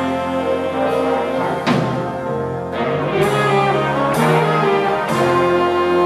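Jazz big band playing: brass and saxophone sections sounding held, shifting chords over bass and piano, with drum-kit cymbal crashes accenting the band several times.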